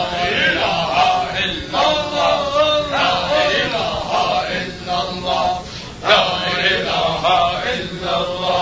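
A group of men chanting together in phrases: the chorus of a tahlila, the devotional chant of 'lā ilāha illā Allāh'.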